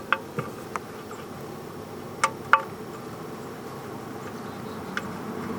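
Light metallic clicks and clinks as the steel oil drain plug and its washer are handled and threaded back into the oil pan, a few scattered ones with a pair about two seconds in, over a steady faint buzzing background.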